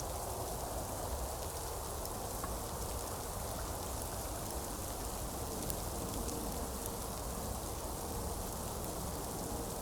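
Steady rain, with a few scattered drop ticks.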